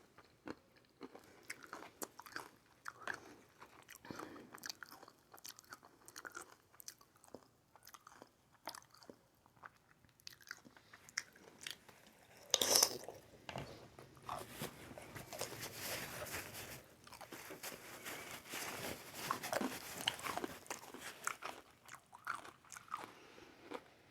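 A person chewing aguachile verde, shrimp and scallops in a lime and chili sauce: wet chewing with many small mouth clicks and bites. There is one louder burst about halfway through, then a stretch of denser chewing.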